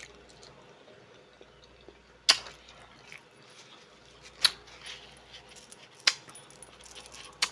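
Three sharp clinks, about two seconds apart, of hard objects knocked together during a meal, with faint small eating noises between.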